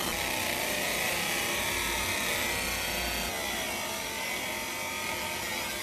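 Laser marking machine running while it engraves a phone's metal back: a steady hissing, buzzing machine noise that shifts slightly about three seconds in.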